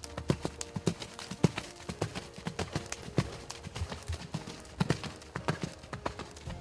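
Hoofbeats of a ridden Thoroughbred horse moving at trot and canter on sand arena footing: a quick, uneven run of dull strikes, several a second.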